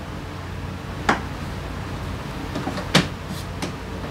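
A few sharp clicks and knocks of parts or tools being handled during hand work on a scooter. The loudest come about a second in and about three seconds in, over a steady low hum.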